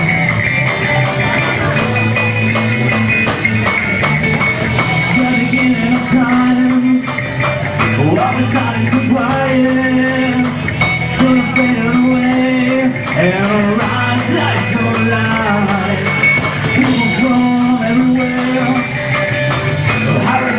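Live rock band playing an instrumental passage: electric guitar with bending notes over bass and drums, leading into the next verse.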